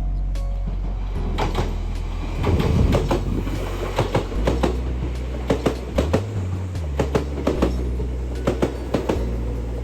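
Kintetsu Minami-Osaka Line electric train passing, its wheels clacking over the rail joints in a run of sharp clicks that grows dense a few seconds in and then comes in quick pairs.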